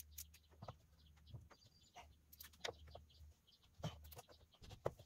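Near silence: a faint steady low hum with a few short, faint clicks scattered through it.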